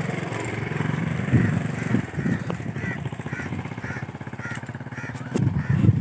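A small engine running steadily with a fast, even beat, with a few sharp clicks about four and a half to five seconds in.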